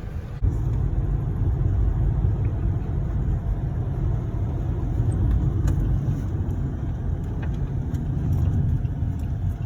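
A steady, loud low rumble that comes in sharply about half a second in and holds, with a few faint clicks.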